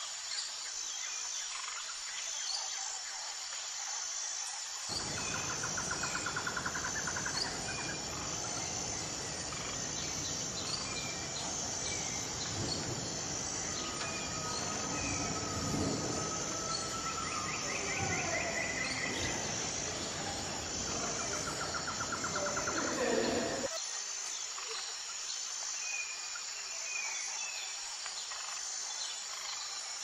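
Steady high insect chirring with scattered bird calls, some short and rattling. A broad rushing background noise comes in suddenly about five seconds in and cuts off abruptly near twenty-four seconds.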